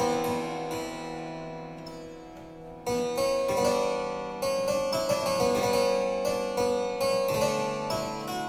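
Clavicytherium (upright harpsichord), a modern copy of a c. 1480 instrument tuned in quarter-comma meantone, playing a piece from a 1431 keyboard manuscript. A chord struck at the start rings and fades for nearly three seconds, then the playing resumes with a run of quicker plucked notes.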